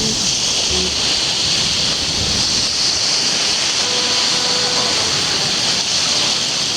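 Steady rush of waves washing onto the shore, an even noise with no distinct breaks.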